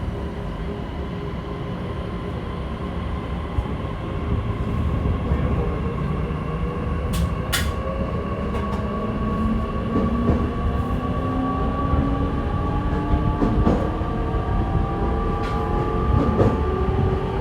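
E501 series electric train heard from inside its motor car, running with a steady rumble of wheels on rail. The traction motor and inverter whine climbs slowly in pitch as the train gathers speed. A few short clicks from the track come through, the clearest about seven seconds in.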